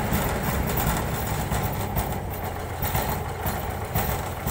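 Combine harvester's diesel engine running steadily at close range with a deep, even rumble.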